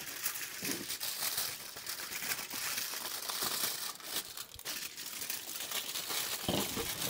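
Aluminium foil crinkling and rustling as it is folded and wrapped around a rack of pork ribs, a continuous crackle throughout.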